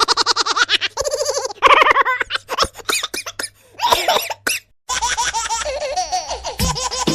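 Laughter sound effects: several bursts of quick, high-pitched 'ha-ha' laughing, pausing briefly near the end. About five seconds in, a brass-like musical meme effect with falling notes starts.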